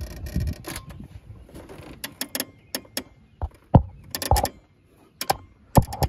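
Repeated sharp clicks from a Power King garden tractor's starter as the key is turned, with the engine not cranking over. This is a no-start that the owner puts down to the starter. The clicks come at uneven spacing from about two seconds in.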